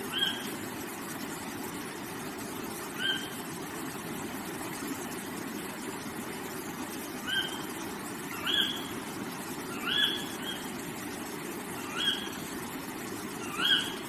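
A rocky stream running steadily over stones. Over it, a bird gives a short, rising call about eight times at uneven gaps, and each call is louder than the water.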